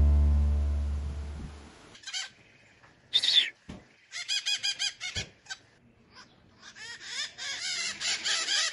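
Background music fading out, then green parakeets calling: high-pitched chirping calls, first singly, then a quick run of about six, then a denser stretch of rapid chatter in the last two seconds.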